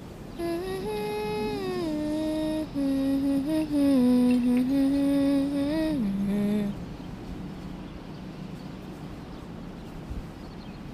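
A lone wordless voice holds long notes in a slow melody that steps gradually lower, for about six seconds. It then stops, leaving only a faint hiss.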